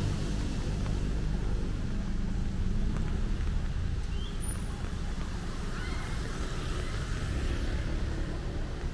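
Steady low rumble of city street traffic, with a few faint short high chirps near the middle.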